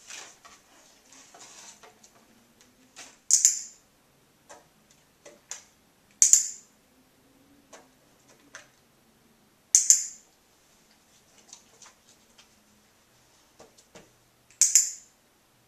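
Dog-training clicker clicked four times, a few seconds apart, each a sharp double click, marking the moment the dog presses its front foot on the target. Faint rustles and small ticks between the clicks.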